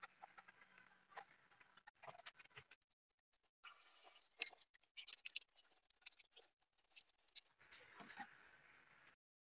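Faint handling noise: scattered light clicks, taps and rustles from hands fitting wooden edge strips and masking tape around a melamine-faced board. It busies up in the middle and cuts off abruptly just before the end.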